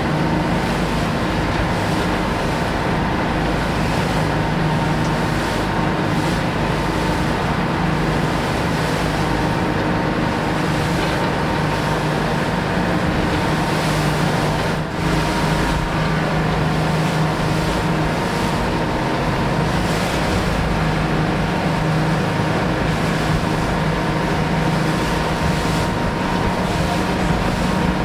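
A boat's engine running steadily, a constant drone under wind and water noise.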